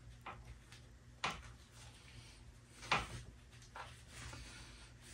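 A few light, scattered clicks of chainsaw chain being handled while it is tied up with wire, with a soft rustle near the end.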